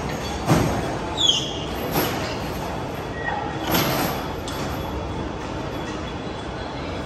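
Heavy machine-shop machinery rumbling steadily, with several metal clanks and a short high squeal falling in pitch about a second in.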